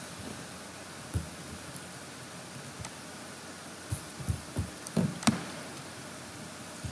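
A few soft clicks and light knocks from a computer mouse being used to scroll a web page, one about a second in and a cluster of five or six near the end, over a steady faint hiss.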